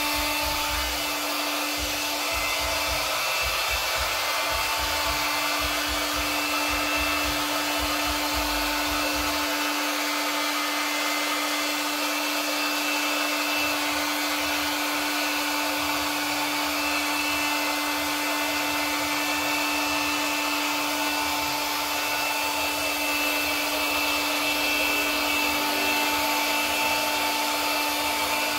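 Handheld hot-air blower running steadily, a constant rush of air with a steady whine over it.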